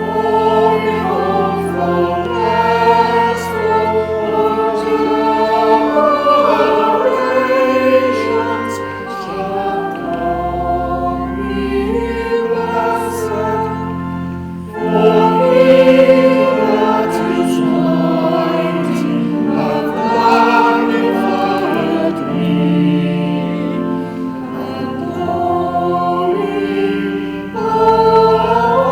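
Church choir singing with organ accompaniment, the organ holding long low notes under the voices.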